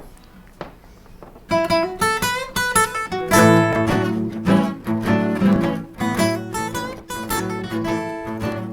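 Acoustic guitar starting a rhythm-and-blues instrumental intro: a few soft taps, then picked notes about a second and a half in, filling out into strummed chords about three and a half seconds in.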